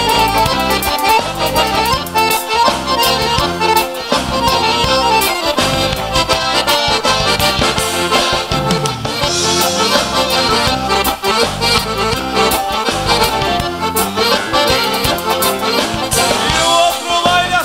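Live band playing an instrumental break of a gaúcho xote: two accordions carry the melody over electric guitar, bass guitar and a drum kit keeping a steady beat.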